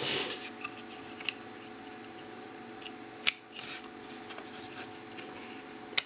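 Hands handling a small circuit board on a wooden desk, rubbing and scraping with a few sharp clicks, the loudest about three seconds in, as a DC barrel power plug is pushed into the Arduino Uno's power jack.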